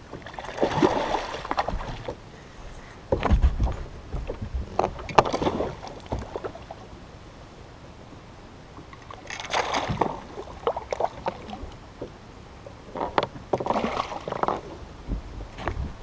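Hooked largemouth bass thrashing and splashing at the surface beside the boat as it is played in, in several irregular bursts a few seconds apart, with a few dull knocks between them.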